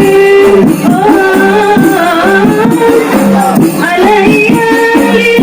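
Qasidah rebana music: a sung melody with long held notes over a steady beat of rebana frame drums.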